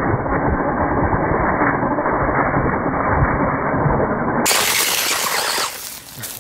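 Tamiya Brat RC buggy with a brushless motor spinning its tyres in loose dirt and dry leaves, giving a dense gritty crackle of flung dirt over a low rumble. About four and a half seconds in, the sound changes abruptly to a brighter hiss that fades near the end.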